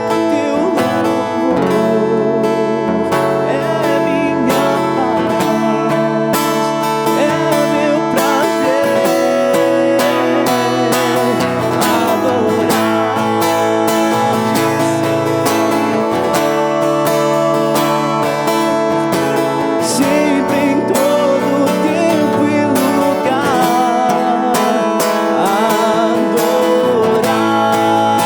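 Worship music led by strummed acoustic guitar, with sustained instrumental tones and a wavering melody line above.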